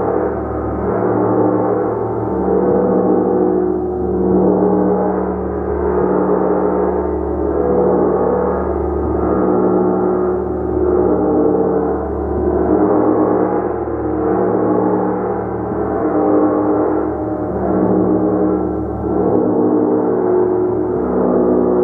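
Large gong played continuously, a dense wash of overlapping ringing tones that swells about every two seconds with each fresh stroke.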